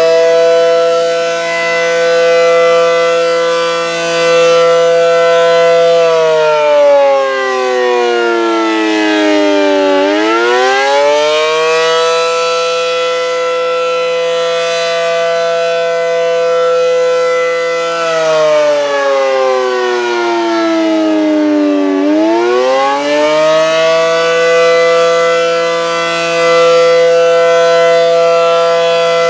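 ACA Allertor 125 tornado siren sounding the attack signal: a loud chord of several tones that holds steady, sinks in pitch over about four seconds, then climbs back up within about two seconds and holds again. It falls and rises twice.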